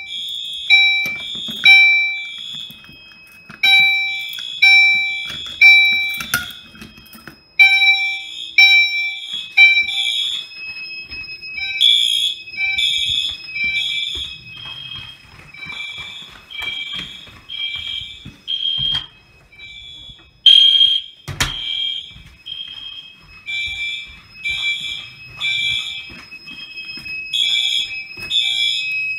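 Fire alarm system horns sounding the evacuation signal after a manual pull station is pulled. The beeps come in groups of three with a pause between groups. About ten seconds in, more horns overlap and a steady high tone joins them. There is a sharp knock about 21 seconds in.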